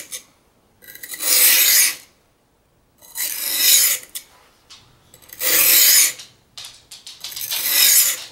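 Carbon-steel knife blade ground across the coarse 220-grit side of a wet Norton combination whetstone to reprofile the edge: four long grinding strokes, each about a second long, about two seconds apart.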